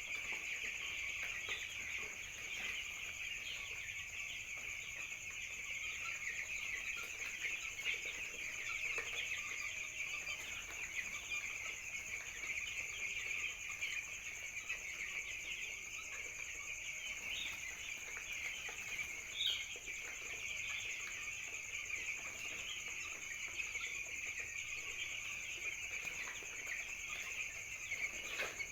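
A flock of young chickens peeping continuously, many overlapping high chirps at once, over a steady high-pitched whine.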